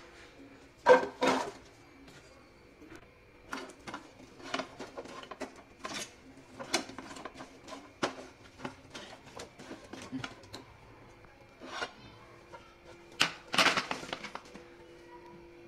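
Manila tamarind pods clattering in a non-stick frying pan as a spatula stirs and tosses them: a run of light knocks, with a louder clatter about a second in and another near the end as the pods are tipped out of the pan onto a plate.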